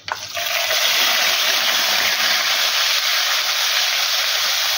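Crushed ginger-garlic paste sizzling loudly in hot oil in a wok. The sizzle starts suddenly as the paste goes in, holds steady, and cuts off abruptly near the end.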